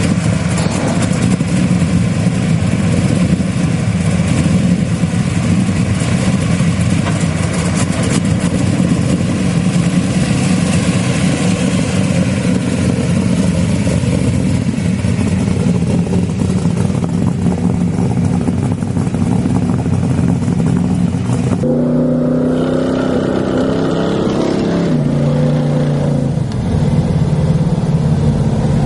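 Chevelle SS's V8 engine running with a steady low rumble. In the last part of the sound its pitch shifts up and down in steps.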